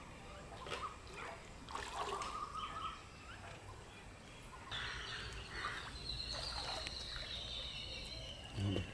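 Faint outdoor ambience beside open water: a low rumble with light water sounds, and a few thin whistle-like calls, the longest held for a few seconds in the second half and falling slightly in pitch.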